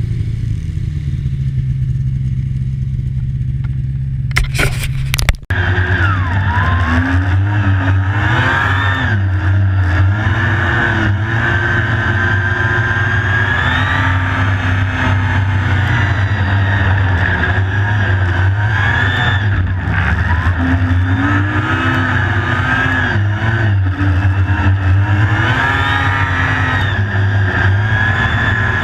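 Snowmobile engine running under way, its pitch rising and falling again and again with the throttle over a steady low drone. About five seconds in the sound changes abruptly after a short rough patch.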